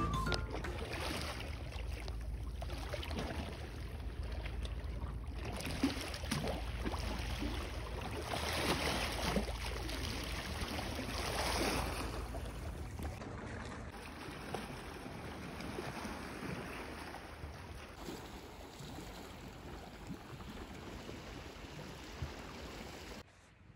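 Small waves lapping and splashing against a rocky shore, with wind rumbling on the microphone.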